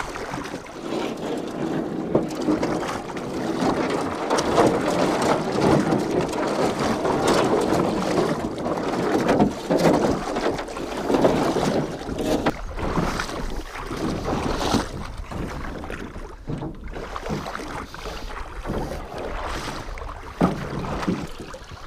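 Shallow river water splashing and rushing along the hull of a small flat-bottom boat being dragged through a riffle, with scrapes and knocks against the hull.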